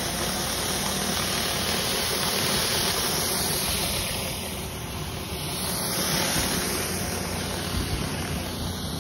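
Pressure washer running steadily: a continuous hiss of high-pressure water on concrete over a low engine hum.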